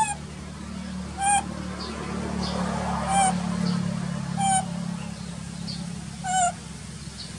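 Infant macaque crying: five short, high, wavering cries about a second and a half apart, over a steady low hum.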